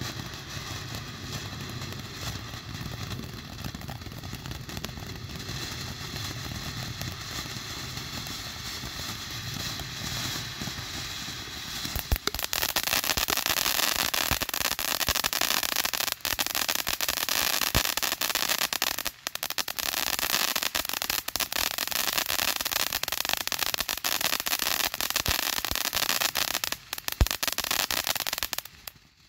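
Phantom Fireworks ground fountain spraying sparks with a steady hiss. About twelve seconds in it surges louder into a dense crackling spray with scattered sharp pops, then stops suddenly near the end.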